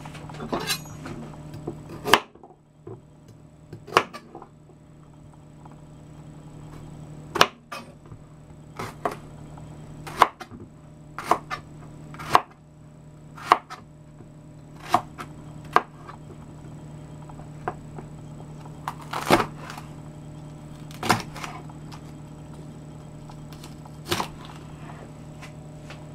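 Kitchen knife cutting eggplant and green bell pepper on a cutting board: sharp knocks of the blade hitting the board, irregular, about one every second or two. A steady low hum runs underneath.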